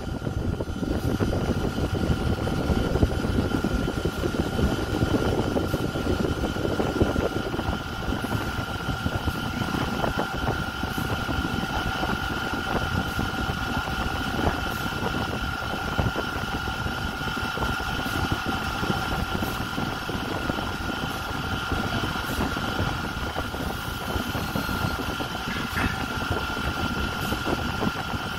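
Electric stand fan running steadily, with a rumble of air from its blades blowing across the microphone and a steady thin whine.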